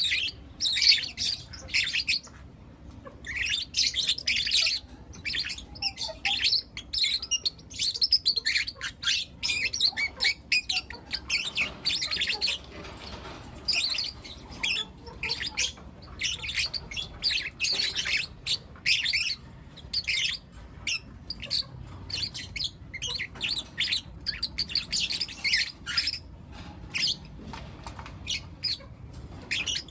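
Several young lutino lovebirds chirping and squawking in rapid, overlapping high-pitched calls, with a brief lull about three seconds in.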